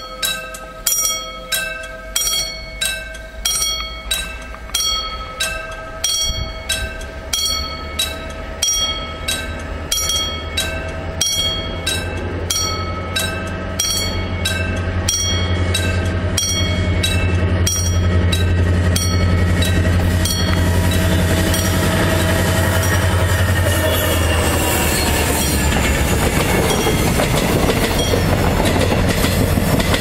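Level-crossing alarm bell ringing in quick, even strokes about twice a second, while a diesel locomotive's engine grows louder underneath. About two-thirds of the way through, the bell gives way to the passenger train passing close by, its wheels running loud over the rails.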